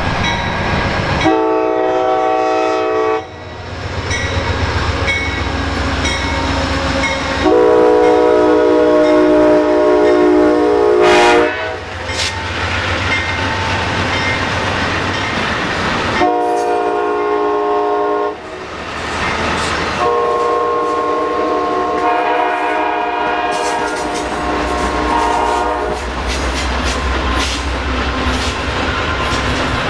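Amtrak GE P42 Genesis diesel locomotive sounding its horn four times as the passenger train passes, the second and last blasts long and the first and third short. Under the horn runs the steady low rumble of the train and the clickety-clack of the coaches' wheels over the rail joints.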